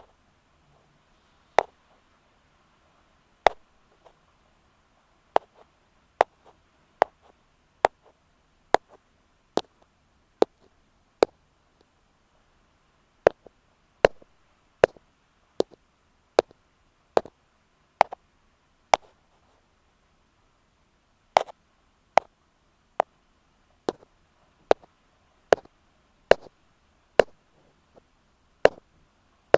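Ear pick tapping on an earphone microphone: sharp, dry clicks at a slow, even pace of a little over one a second, twice pausing for about two seconds.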